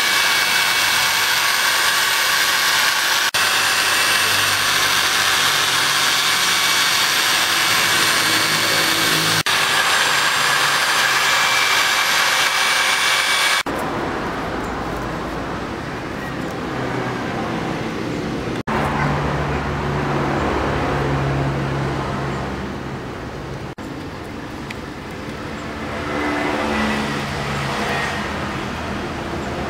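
A handheld electric mini drill runs at high speed with a steady whine while boring into a dried corn cob. About halfway through it gives way to a quieter, lower mechanical hum.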